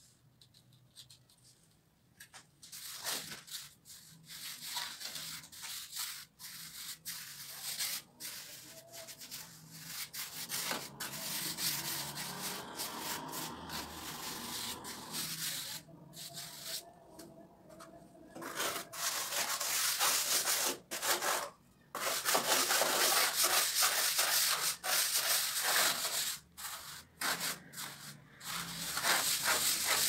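Hand trowel scraping and smoothing wet cement plaster on concrete stair steps, in repeated strokes with short pauses. It starts a couple of seconds in and grows louder and more continuous in the second half.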